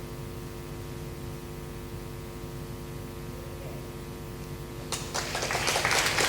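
Steady electrical mains hum from the PA system. About five seconds in, applause starts and quickly grows louder.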